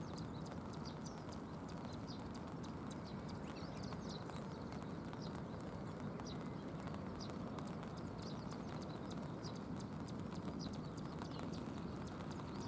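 Steady rushing noise of rain and flowing river water, with many short high-pitched ticks scattered irregularly throughout.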